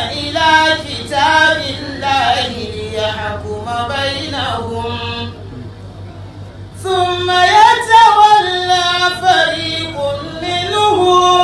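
A man chanting a solo Islamic religious chant into a microphone, in long held, wavering melodic phrases. A short breath pause comes a little past the middle before the chant resumes.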